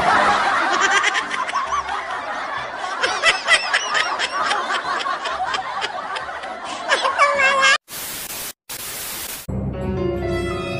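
Added comedy soundtrack: music with giggling laughter over it. About eight seconds in it cuts to a loud hiss with a short break, and then eerie music of held tones begins.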